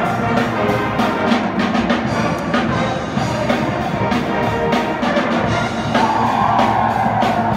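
College pep band playing live, brass horns over a steady drum beat.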